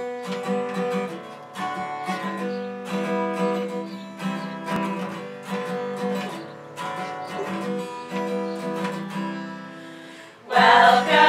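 Acoustic guitar strummed in a steady rhythm as a song's introduction. Near the end a group of women's voices comes in singing together, louder than the guitar.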